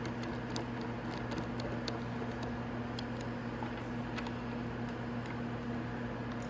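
Steady hum with faint, scattered light clicks as a mirror bolt is threaded by hand into a motorcycle fairing.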